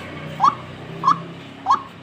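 White-breasted waterhen (ruak-ruak) calling, a short upward-sliding note repeated about every 0.6 s, three times. It is the lure call used to draw wild waterhens to a trap.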